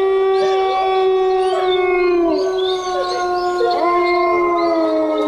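Horror ghost sound effect: several drawn-out howling tones layered together, held steady with wavering, rising and falling glides over them.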